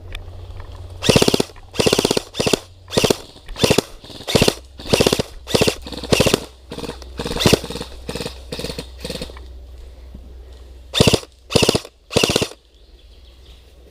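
Airsoft rifle firing short full-auto bursts, one roughly every half second for about eight seconds, then three more bursts near the end. The bursts are loud and close.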